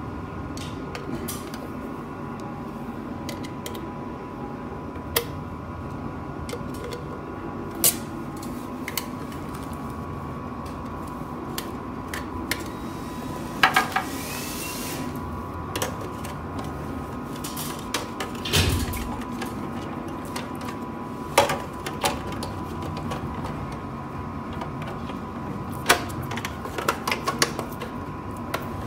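Scattered sharp metallic clicks and knocks from handling the open sheet-metal case of a network video recorder and working a screwdriver at its screws, with one duller thump partway through, over a steady background hum.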